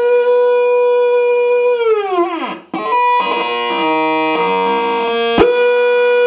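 Lighthouse fog horn unit sounding a loud, steady, buzzy tone. About two seconds in, its pitch sags and slides down to a low note and nearly cuts out. It comes back as a jumble of shifting, stepping tones, then, with a click about five seconds in, settles back into the steady tone.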